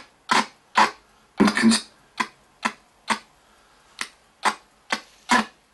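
RTC ghost box sweeping through radio frequencies: short chopped bursts of radio sound and static about twice a second, a few of them carrying brief snatches of voice.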